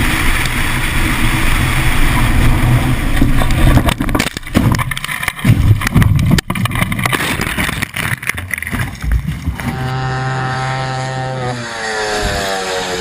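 Vehicle noise recorded from a dash cam: steady road and engine noise, broken by a run of loud, irregular knocks and bangs about four to nine seconds in. After a cut, an engine runs at a steady pitch that begins to rise near the end.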